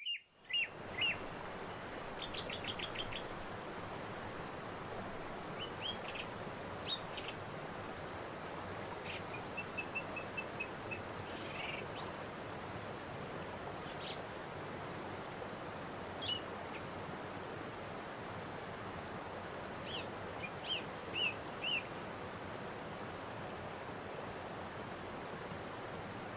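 Several songbirds chirping and singing in short phrases and quick trills, scattered throughout, over a steady background hiss of outdoor noise.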